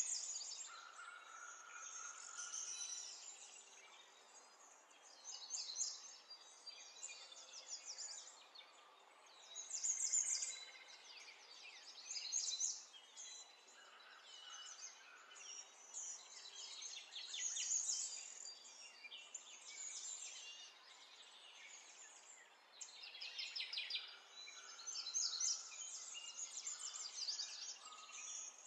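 Small songbirds chirping and trilling in repeated bouts of rapid, high notes, over a faint steady hiss.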